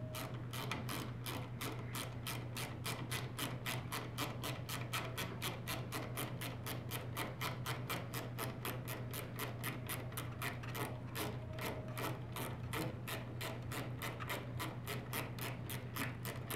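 Ratcheting screwdriver clicking steadily, about four clicks a second, as it is turned back and forth to back out a star-shaped (Torx) screw holding a camera in its mount.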